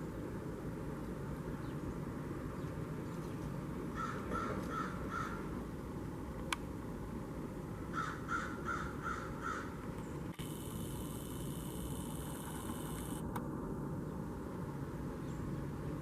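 Blue jay giving two quick series of harsh, crow-like jay calls, four notes and then five, over a steady low background rumble.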